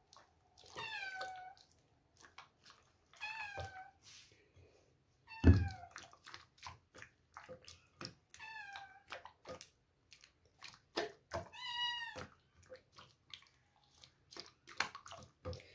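A cat meowing about five times, each meow falling in pitch, over soft clicks and squelches of a spatula mixing chicken in yogurt in a glass bowl. A thump about five and a half seconds in is the loudest sound.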